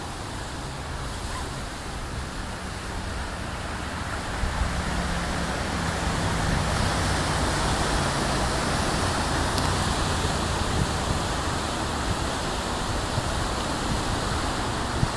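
Ocean surf: a steady wash of waves breaking on the shore, growing louder about five seconds in.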